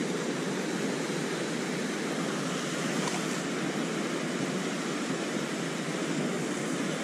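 Ocean surf washing steadily on the beach: an even wash of noise with no single wave standing out.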